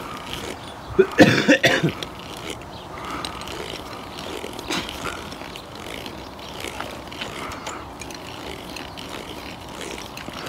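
Hand armour-cutting tool being turned around a 6 mm steel-wire-armoured cable, scoring through the armour. A few loud clicks about a second in, then quieter repeated clicking and scraping.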